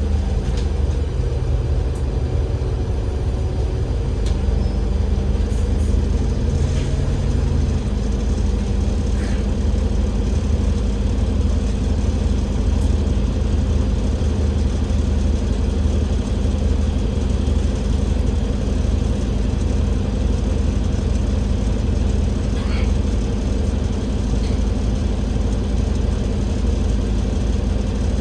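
Cummins L9E diesel engine of an Enviro500 MMC double-decker bus, heard from on board, running with a steady low drone. Its hum shifts in pitch a few seconds in and then holds steady.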